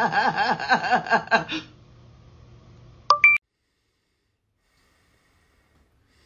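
A person laughing in a quick, rhythmic cackle for about a second and a half, then a short electronic beep that steps up in pitch about three seconds in, followed by silence.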